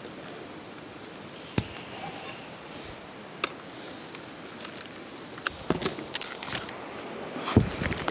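Steady insect chirring, with scattered sharp clicks and rustles as a wicker basket of round bottle gourds is handled in the grass. A cluster of clicks comes past the middle, and a low thump near the end as the basket is lifted.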